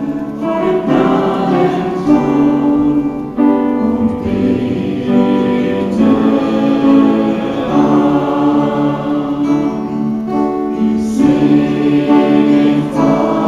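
Group of voices singing a German worship song, accompanied by guitar and keyboard.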